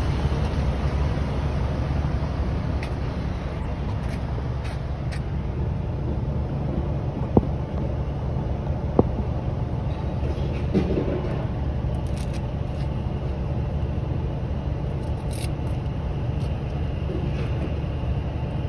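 Steady low engine rumble of a vehicle running nearby, with two sharp clicks about seven and nine seconds in.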